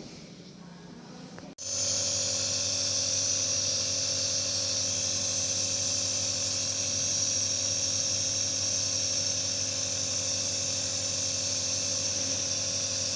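Compressor nebulizer switched on about a second and a half in, then running steadily: a motor hum with a high hiss of air.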